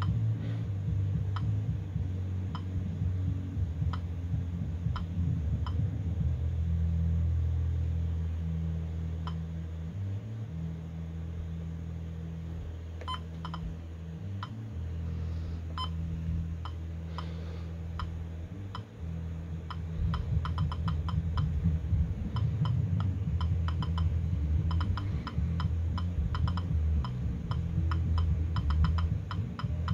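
Short electronic key beeps from a First Alert WX-167 weather alert radio as its buttons are pressed while stepping through the alert-code menu. Single beeps come a second or so apart at first, then quick runs of several beeps a second in the second half. A low hum sits underneath.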